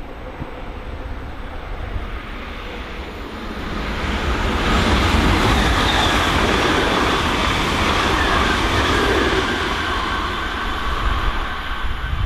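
ICE 3 high-speed electric train passing through at speed: rolling noise and rumble build over the first few seconds, are loudest in the middle with steady high tones riding on top, then ease off as the train draws away.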